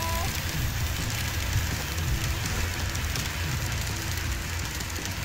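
N-gauge model trains running past each other: a steady low rumble of motors and wheels with a fine patter of small clicks from the track.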